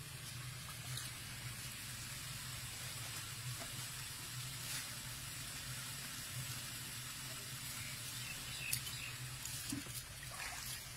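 Faint water splashing as a baby Asian elephant's feet step about in a shallow muddy puddle, with a few small splashes near the end as its trunk reaches into a tub of water.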